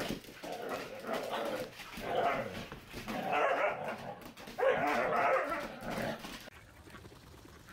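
A dog vocalizing in a run of about five calls, the last one the longest. The calls stop about six and a half seconds in.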